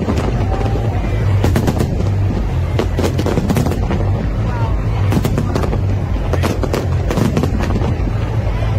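Fireworks display: aerial shells bursting in a rapid barrage, many sharp bangs in quick succession over a steady low rumble.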